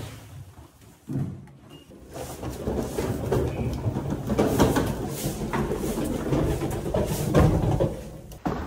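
Wheels of an aluminium hard-shell suitcase rolling and rattling over the floor and across a lift's threshold, a dense run of clatter that starts about two seconds in, after a knock at the start.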